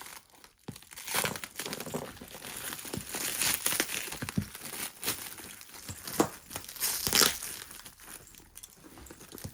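Parcel packaging crinkling and tearing as it is handled and pulled open, in irregular, loud crackling bursts.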